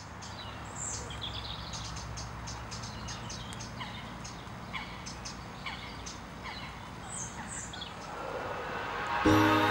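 Birds calling and chirping, many short chirps and falling whistles, over a steady low hum. Music comes in near the end and is the loudest sound.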